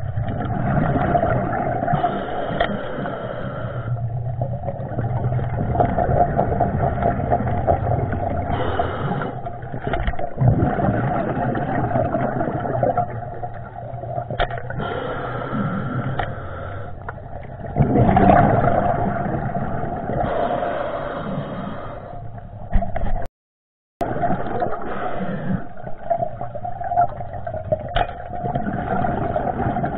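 Muffled underwater noise through a waterproof camera housing: a steady rumbling rush of water with occasional knocks and scrapes. The sound cuts out completely for under a second a little over three-quarters of the way through.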